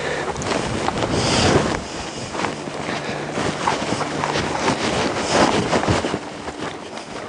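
Wind buffeting the microphone, gusting loudest about a second in and again around five seconds, over the soft hoof falls of two horses walking on sand.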